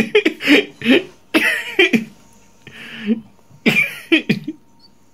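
A man laughing in short bursts with brief pauses between them.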